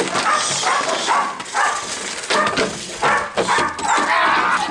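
German Shepherd barking repeatedly in quick runs as it lunges on its leash at a man provoking it: the aggressive barking of protection training.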